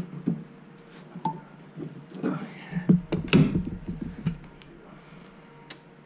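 Metal hand tools clicking and clinking against a copper water pipe, with a scatter of small knocks and one sharper knock about three and a half seconds in.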